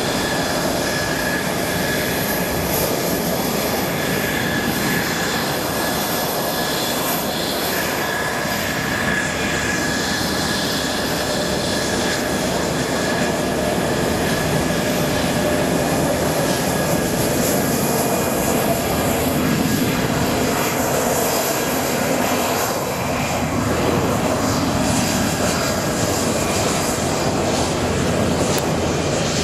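Mitsubishi F-2 fighters taxiing past one after another, their single F110 turbofan engines running at taxi power: a steady jet rush with a high, even whine.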